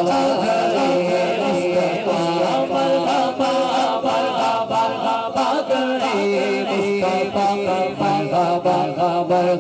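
Two men singing an Urdu devotional naat into microphones, with long-held, wavering notes and no break in the singing.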